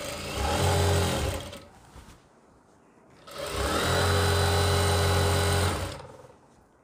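JACK industrial lockstitch sewing machine stitching a seam in two steady runs, the first about a second long and the second about two and a half seconds, with a short pause between.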